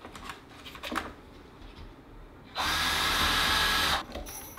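Cordless drill driving a screw through the metal mounting plate of a wooden furniture leg, one steady run of about a second and a half, after a couple of light clicks.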